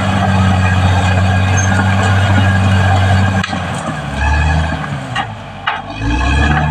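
Caterpillar D6R XL bulldozer's diesel engine running hard with a steady note and a broad clattering noise; about three and a half seconds in the note drops, sags briefly, then picks up again lower and uneven.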